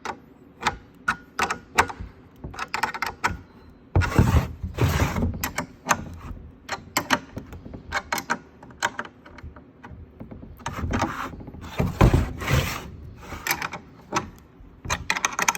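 A 10 mm wrench tightening the nuts on the light mounts of a steel ATV rear rack: a run of short metal clicks at an uneven pace, with a couple of heavier knocks about four seconds in and again about twelve seconds in.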